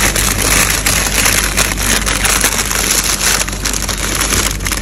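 Plastic wrappers of frozen ice-cream packs crinkling and rustling as hands rummage through them in a chest freezer: a dense, continuous crackle of many quick clicks.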